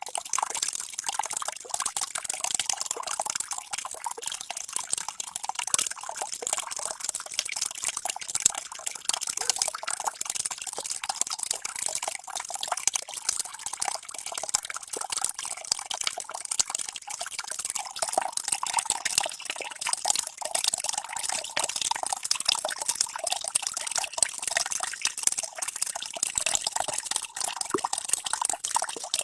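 Water running and splashing steadily, a dense stream of small splashes and drips with almost no low end.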